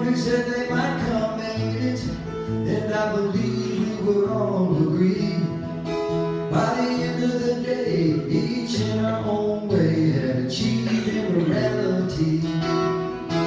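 A song performed live on a strummed acoustic guitar, with a man singing in stretches.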